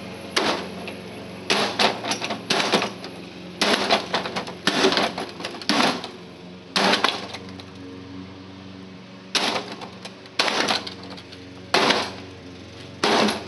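A small sledgehammer striking the sheet-metal casing of a space heater: about a dozen irregular clanging blows, some in quick pairs, with a pause of about two seconds past the middle. A steady low hum runs underneath.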